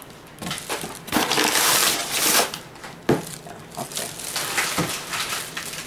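Clear plastic bag crinkling and rustling in irregular bursts as plastic bottles are pulled out of it and handled.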